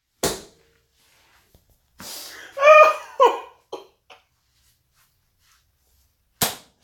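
A man laughing: a short breathy burst, then a high-pitched broken run of laughs about two seconds in, and another breathy burst near the end.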